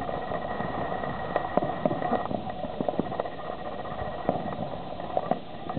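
Ground fountain firework spraying sparks, a steady hiss with irregular sharp crackling pops several times a second.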